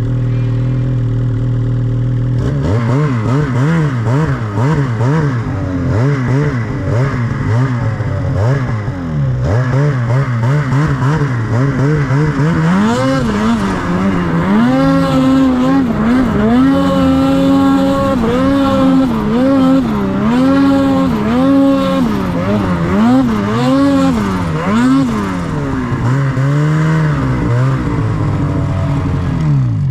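Snowmobile engine running steadily at first, then revving, and over the second half rising and falling in pitch again and again as the throttle is opened and eased off.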